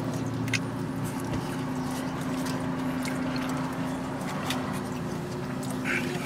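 Quiet eating sounds, chewing and a few light ticks of plastic utensils against a foam bowl, over a steady low hum inside a parked car. A brief, slightly louder sound comes near the end.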